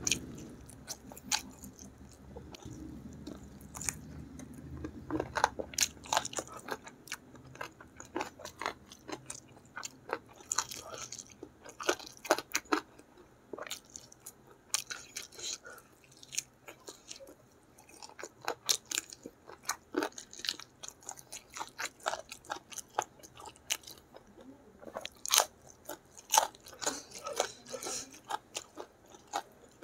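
A person chewing and biting mouthfuls of gulai chicken and rice with petai sambal, eaten by hand: an irregular run of mouth clicks with short lulls between mouthfuls.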